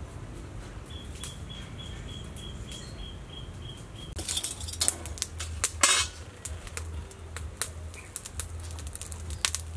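A bird repeats a quick series of short, high, even chirps, about four a second, for some three seconds. Then comes a run of sharp metallic clicks and clatters, loudest a little after the middle: a wire grill and utensils being handled on a clay charcoal stove.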